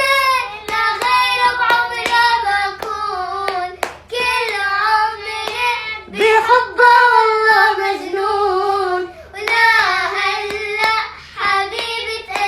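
A girl singing a melody in a high voice, accompanied by hand claps keeping time about twice a second.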